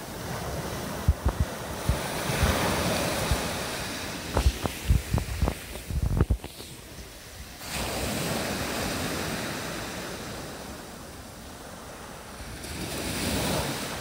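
Sea waves breaking and washing up the shore, the rushing surge swelling and fading several times. Wind buffets the microphone in a run of sharp low thumps during the first half.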